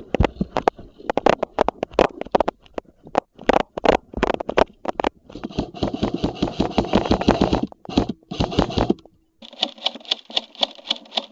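Airsoft guns firing: a string of sharp clicking shots, with stretches of rapid, buzzing repeat fire in the middle and near the end.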